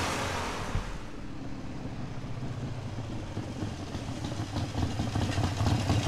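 Harley-Davidson Iron 883 motorcycle approaching along the road, its V-twin exhaust rumble growing louder as it nears and is loudest near the end as it pulls up close.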